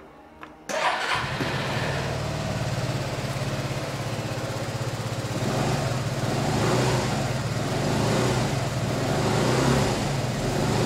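2019 Suzuki Burgman 125's single-cylinder four-stroke engine cranked on the electric starter and catching within a fraction of a second, then idling steadily. From about halfway, the throttle is blipped several times, the revs rising and falling about once a second.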